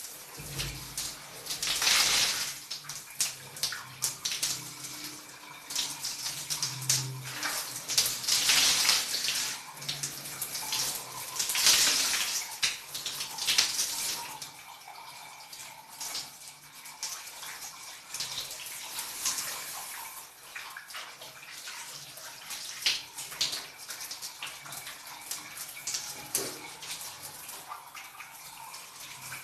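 Shower water running and splashing as someone bathes under it. The spray swells and drops in loudness in irregular surges during the first half, then runs steadier and softer.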